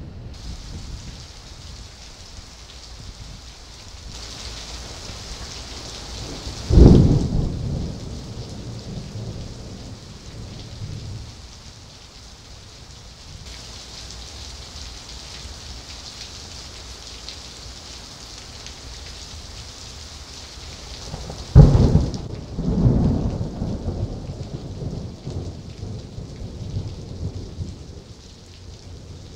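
Steady heavy rain hissing, broken twice by thunder from nearby cloud-to-ground lightning strikes. Each strike is a sudden sharp crack that rolls into a rumble fading over several seconds. The second clap has another loud burst about a second after the first crack.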